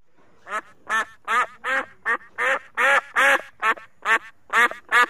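White domestic goose calling a steady run of short, nasal quacking honks, about a dozen in a row at two to three a second, each call rising and falling slightly in pitch.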